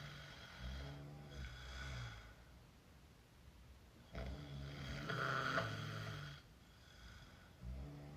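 A woman snoring with her mouth open: rattling snores on the breaths, separated by quieter pauses of a second or two. The loudest snore comes about halfway through, and another starts near the end.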